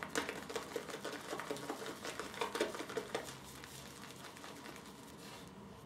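Shaving brush whipping shaving-soap lather in a bowl: fast, wet, squishy strokes for about three seconds, then fading to faint working as the lather turns creamy.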